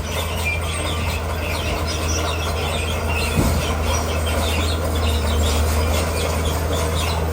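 Komatsu D41P crawler bulldozer's diesel engine running steadily under work, with metallic squealing and clatter from its steel tracks.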